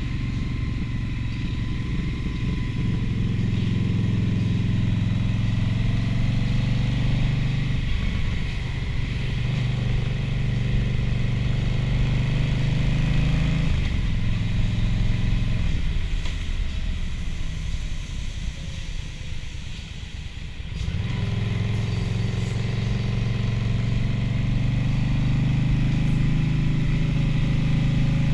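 Motorcycle engine running at a steady cruising speed. About 16 seconds in, its note falls and quietens as the throttle is rolled off, then it picks back up around 21 seconds as the rider accelerates again.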